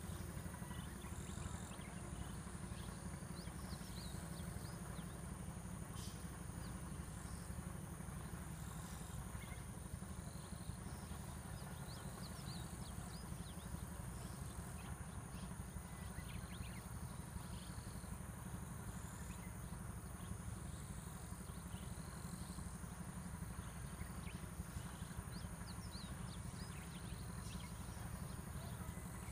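Countryside ambience: birds chirping with short, high calls scattered throughout, over a steady high insect drone and a steady low rumble.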